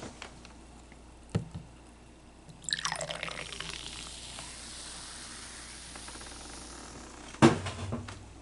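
Carbonated soda being poured into a small cup, splashing and fizzing for about five seconds. There is a light knock shortly before the pour and a louder knock near the end.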